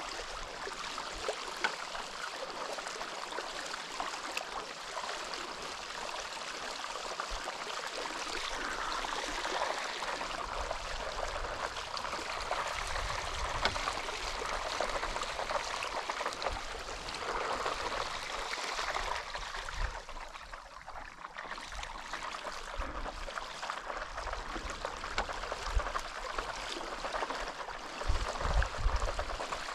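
Steady wash of water moving along a paddleboard as it glides across a lake, with irregular low wind rumble on the microphone.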